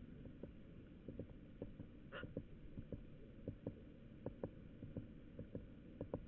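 Blue tit pecking at a frozen chicken carcass: soft, irregular taps, several a second, over a low steady background rumble.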